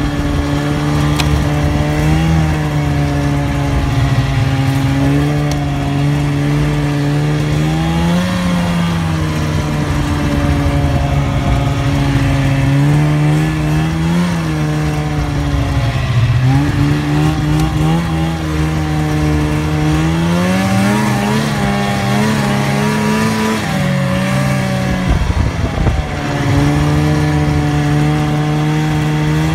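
Snowmobile engine running under way, its pitch rising and falling with the throttle again and again.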